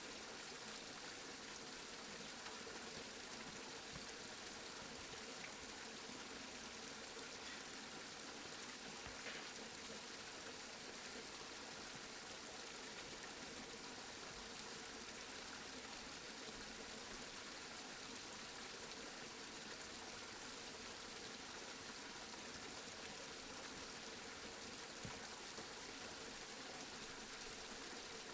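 Steady rain falling, an even hiss with a couple of faint drop ticks.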